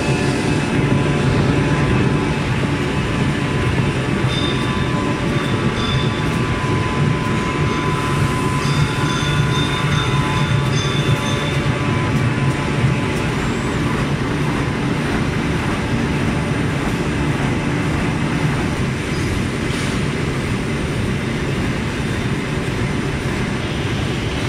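Corrugated carton-making machines running, including a flexo printer-slotter feeding cardboard sheets: a loud, steady mechanical din with a strong low hum. Faint high whining tones come and go during the first half.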